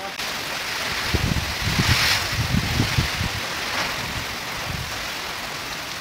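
Heavy rain hissing steadily in strong wind, with gusts buffeting the microphone as low rumbles, strongest in the first half.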